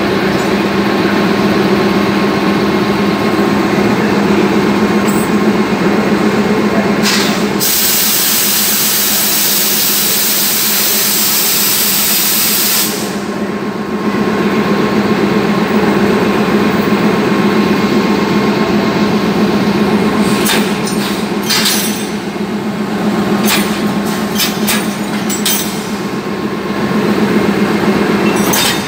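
Alsthom diesel-electric locomotive idling with a steady low hum. About eight seconds in, a loud hiss lasts some five seconds. Short clicks and knocks come through the last third.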